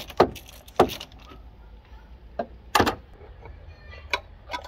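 Ratchet wrench clicking as it loosens the oil filter housing cap on a 1.6 HDi diesel engine: two sharp clicks in the first second. These are followed by a few scattered knocks and clunks as the cap and filter are handled, the loudest near the middle.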